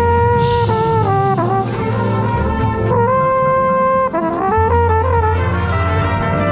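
Drum corps brass line playing loud, sustained chords, with the lead mellophone close to the microphone. The notes move every second or so, and one long held note runs from about three to four seconds in. A short burst of noise comes about half a second in.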